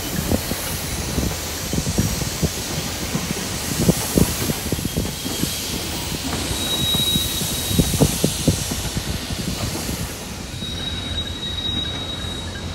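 A slow-moving cut of empty tank cars rolling through yard switches: steel wheels knock and clack over rail joints and frogs. Brief thin, high wheel squeal comes around the middle and again near the end.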